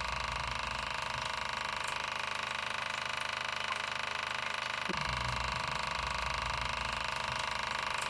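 Subwoofer driven by a frequency generator with a very low test tone of about 23 to 24 Hz, giving a steady buzz. Its deep part weakens about a second and a half in and comes back strongly about five seconds in.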